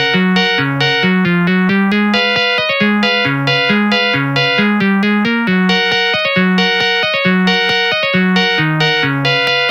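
Samsung SGH-S105 polyphonic ringtone played through an MCP-MA7: a quick, even run of short synthesized notes over a bass line stepping back and forth between two low notes.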